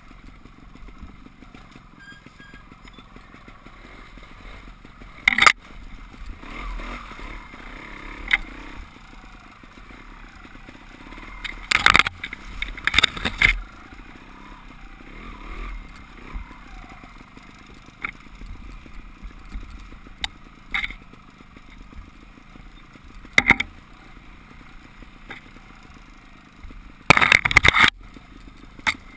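Off-road motorcycle engine running at low speed on a rough trail, under several sharp clattering knocks from the bike and camera being jolted over roots and rocks, with a cluster of them about midway and a longer clattering burst near the end.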